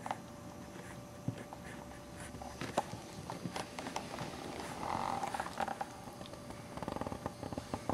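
Two-week-old Boxer puppy making small grunts and snuffles, with light ticks as it moves. There is a short louder grunt about five seconds in and a rapid, purr-like rattling grunt near the end.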